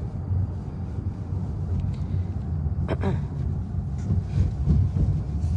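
Steady low rumble of a car driving, heard from inside the cabin: road and engine noise. A short squeak falls quickly in pitch about three seconds in.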